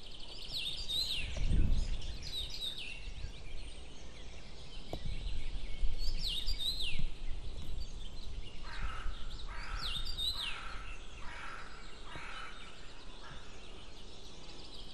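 Wild birds calling: clusters of high chirps that fall in pitch come three times, and from about halfway through a run of about six shorter, lower notes repeats roughly twice a second. A brief low rumble about one and a half seconds in.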